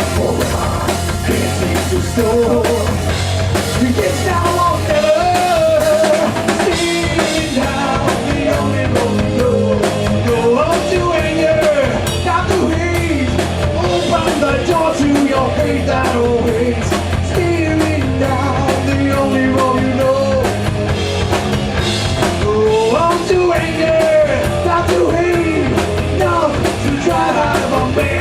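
Live rock band playing: singing over drum kit and guitars.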